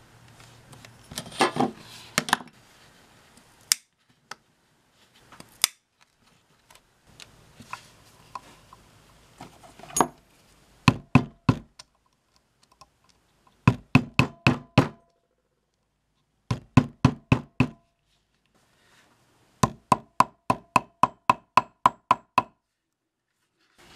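A hammer striking a steel punch held upright on leather over a stone slab, punching holes and setting eyelets. After a few scattered light taps and scrapes, from about ten seconds in it comes as quick runs of blows, roughly five to a dozen at a time with short pauses between, each blow with a brief metallic ring.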